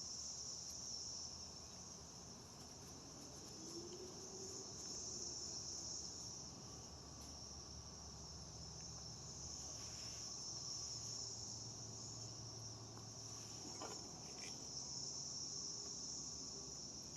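Steady, high-pitched chirring of insects, with a few faint knocks of handling.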